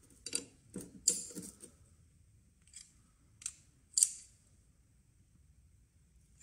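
Steel open-ended spanners clinking against an AN4 braided-hose fitting as it is tightened: a handful of sharp metal clicks in the first second and a half, then three more around three to four seconds in.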